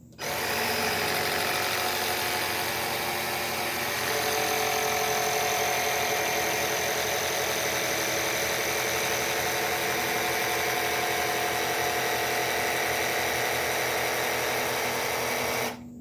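Air compressor running steadily as it pumps air into a homemade PVC launcher's pressure chamber to load the next shot. It starts abruptly, gets a little louder about four seconds in, and cuts off shortly before the end.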